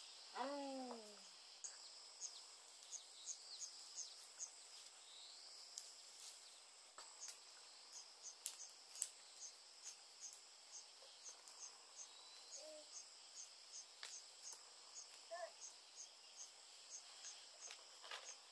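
Faint insect chorus: a steady high buzz with a short sharp chirp repeating about twice a second, breaking off briefly partway through. Just after the start, a short call falls in pitch.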